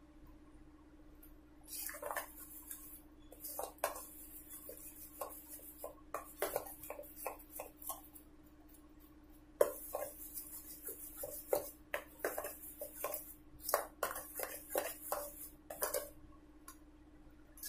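Thick urad dal batter being beaten in a bowl, with irregular runs of clicks and scrapes against the side of the bowl, pausing now and then.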